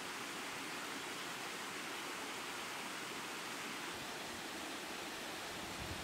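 Small jungle waterfall splashing over rocks: a steady rush of falling water. A brief low bump comes near the end as the sound shifts.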